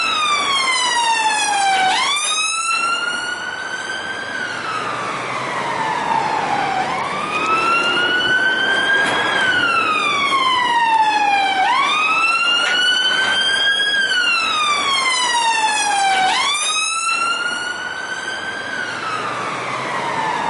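Police car siren on a slow wail. The tone sweeps up quickly, climbs more gently to its peak, then slides back down, repeating about every five seconds, four times here.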